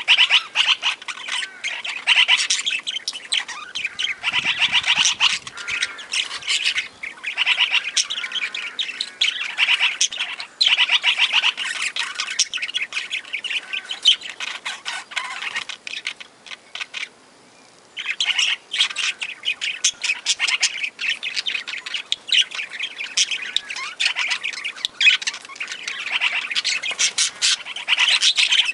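A flock of aviary parakeets chattering and squawking in dense, rapid chirps, with a brief lull a little past the middle.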